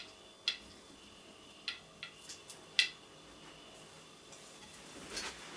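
A handful of short, sharp clicks at irregular intervals over a quiet room hush, with a soft breathy sound near the end.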